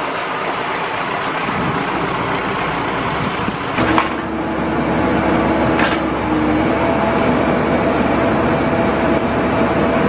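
John Deere 310J backhoe loader's diesel engine running steadily, with a sharp clank about four seconds in and another near six. From about four seconds a steady whine comes in over the engine and steps up in pitch near seven seconds as the machine gets a little louder.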